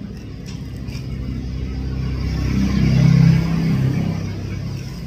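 A motor vehicle going past, its engine rumble swelling to its loudest about three seconds in and then fading away.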